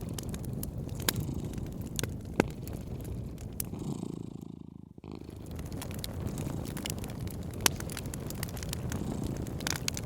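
A cat purring steadily, with a wood fire crackling and popping in sharp snaps over it. The purring fades out briefly about halfway and cuts back in.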